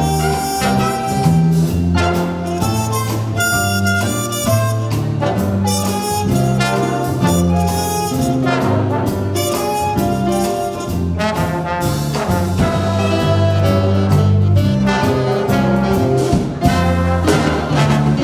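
Student jazz big band playing: trumpets, trombones and saxophones over piano, electric guitar and drum kit.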